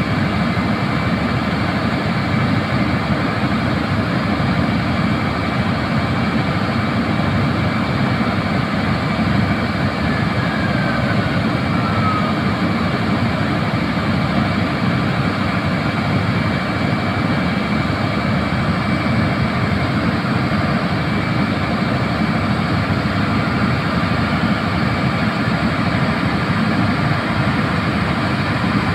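Land drilling rig's engines and machinery running, a loud steady noise with a thin steady whine above it. A short falling squeal comes about ten seconds in.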